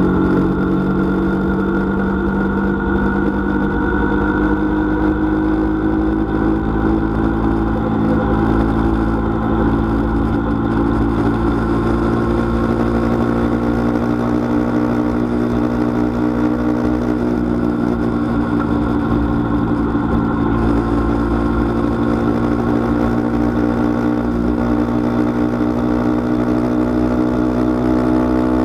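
Engine of the vehicle being ridden, running steadily at cruising speed. Its pitch rises slowly near the end as it picks up speed.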